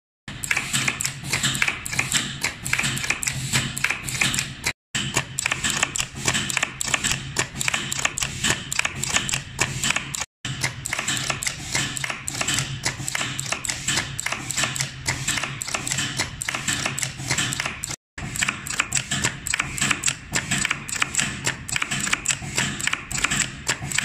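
Push-button safety air coupling being cycled over and over by a pneumatic life-test rig: rapid, continuous clicking and clatter over a steady low hum. The sound cuts out briefly three times.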